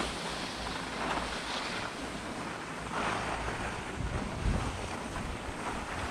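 Skis sliding and scraping over groomed, tracked snow while skiing downhill, with wind buffeting the camera microphone. The hiss of the skis swells and fades a couple of times, and a low wind rumble thickens about four seconds in.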